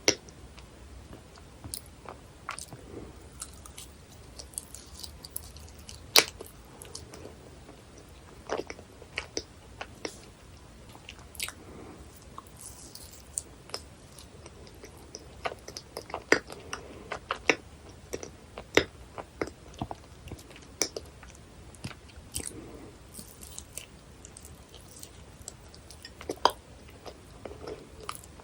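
Close-miked chewing of dense, fudgy cheesecake: soft, sticky mouth sounds and smacks, broken by many short, sharp clicks.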